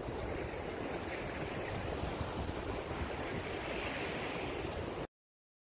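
Wind rumbling on the microphone over surf washing on a beach: a steady, noisy rush that cuts off abruptly about five seconds in.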